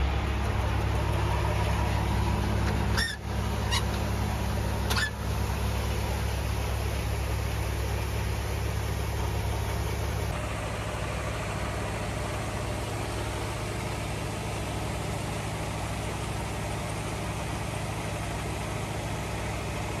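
Tractor engine running steadily to drive a grain auger while grain pours from a truck box into the auger's hopper, with a few short knocks in the first five seconds.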